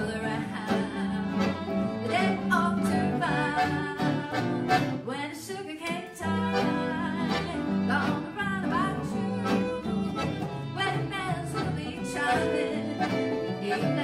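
Western swing band playing live: fiddle, piano accordion, upright bass and acoustic guitar, with a steady bass line and rhythmic guitar strums under the fiddle and accordion.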